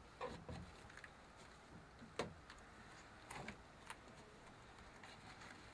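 Near silence with a few faint scrapes and light knocks as a spreader smooths Freefix adhesive filler over a marine-ply board and the board is handled.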